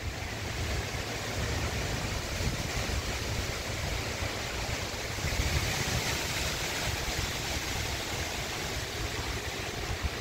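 Steady rain falling, a hiss that swells a little about halfway through, with a low rumble of wind on the microphone.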